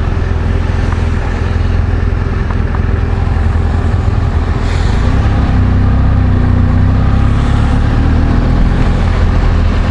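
Motorcycle engine running while riding, under a steady rush of wind noise. The engine note grows a little louder about halfway through.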